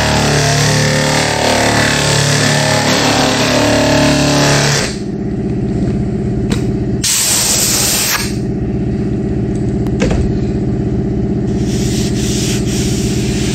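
Pneumatic straight-line sander scrubbing old paint off a car's rear spoiler for about five seconds. It is then lifted clear and keeps running free with a steady whine, with a brief loud hiss about seven seconds in.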